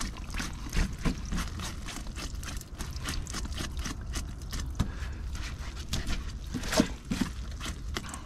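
A catch of whitebait in a wet whitebait net: a quick, uneven patter of light ticks as the small fish flick against the mesh, with water trickling off, and one louder tick about seven seconds in.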